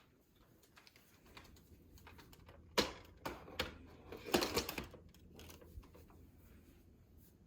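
A few sharp clicks and knocks of objects being handled: one about three seconds in, then a quick cluster of clicks about a second and a half later.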